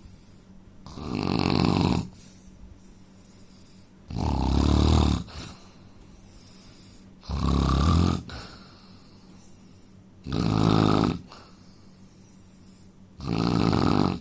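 A man snoring in a steady rhythm: five snores, one about every three seconds, each lasting about a second.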